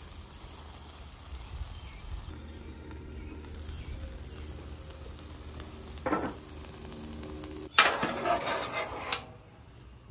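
Steak and melting provolone sizzling quietly on a steel flat-top griddle. There is a brief metal clatter about six seconds in. About eight seconds in, two metal spatulas scrape across the griddle top for about a second and a half as the meat is scooped up.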